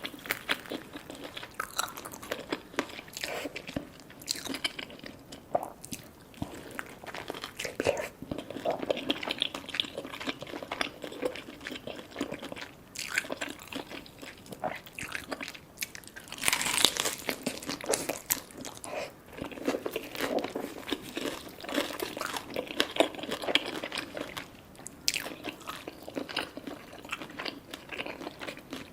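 Close-miked biting and chewing of crispy fried food, with dense irregular crunching of the crust, loudest a little past the middle.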